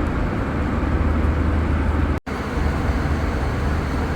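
Airliner cabin noise in flight: a steady low drone of engines and rushing air, which cuts out for an instant a little past halfway.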